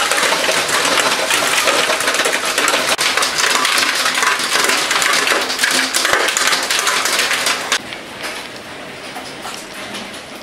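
Storm downpour pelting hard surfaces, a loud, dense clatter of countless small impacts. It drops abruptly to a quieter, sparser patter about eight seconds in.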